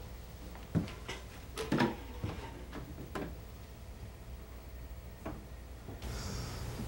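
A run of light knocks and clicks over a low steady room hum, most of them in the first three seconds and one more a little after five seconds.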